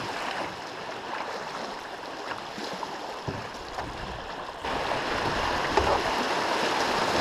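Fast, shallow river water rushing and splashing around a canoe as it runs riffles. About two-thirds of the way in the water noise suddenly gets louder as the canoe enters rougher whitewater.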